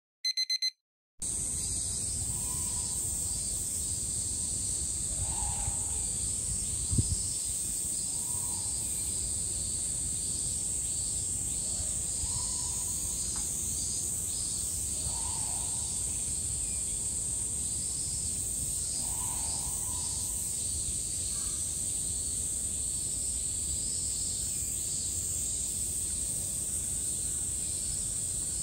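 A steady, high-pitched buzzing chorus of summer cicadas, with faint short calls every few seconds and one dull thump about seven seconds in. It follows a brief electronic beep and a second of silence at the start.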